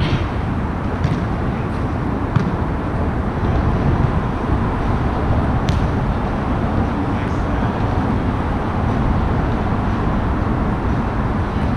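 Steady low rumble of road traffic on the elevated freeway overhead, with a few brief sharp knocks of a volleyball being played, one near the start and a louder one about halfway through.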